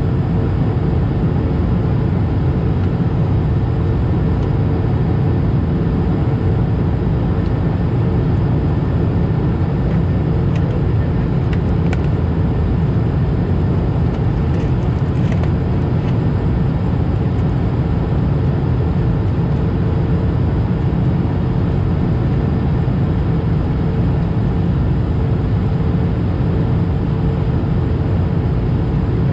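Airbus A220-300 cabin noise in flight, heard at a window seat: a steady, deep rumble of airflow and its Pratt & Whitney PW1500G geared turbofan engines, with a steady low hum. A few faint ticks come about halfway through.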